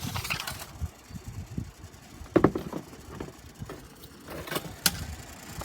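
Vintage Lasko box fan running on its low setting, its airflow buffeting the microphone in an uneven low rumble. A sharp knock comes near the middle and a short click near the end.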